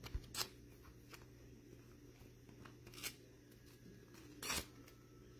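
Faint handling of a trading card and a clear plastic card sleeve, with three short scrapes as the card slides in, the longest about four and a half seconds in.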